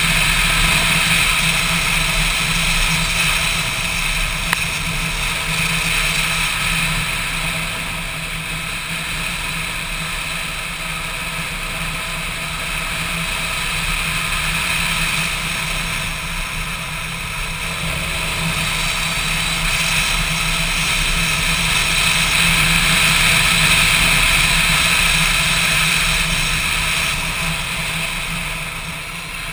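Motorcycle engine running steadily on the move, with wind and road noise over the microphone; the level swells and eases a little and falls away near the end.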